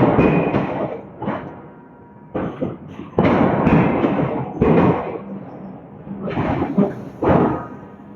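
Hydraulic forging hammer striking a steel billet again and again, heavy blows at uneven intervals roughly a second apart.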